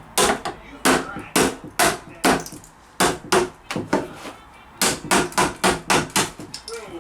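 A hammer repeatedly smashing a loudspeaker cabinet: about fifteen sharp blows at roughly two a second, with a brief pause about four seconds in.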